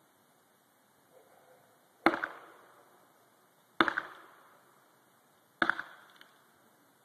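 Three heavy axe chops into a tree, about two seconds apart, each a sharp strike with a short ringing decay.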